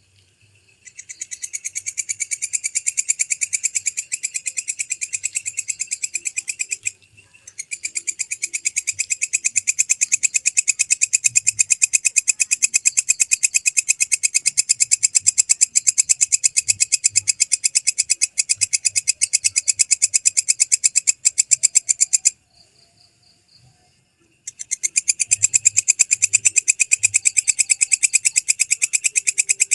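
Walang kecek (belalang kecek) katydid calling in long, loud, clear trills of very rapid, evenly spaced pulses. It starts about a second in, breaks off briefly near a quarter of the way through, stops for about two seconds near the end, then resumes.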